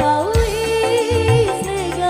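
Background music: a sung or melodic South Asian–style song with a steady low beat.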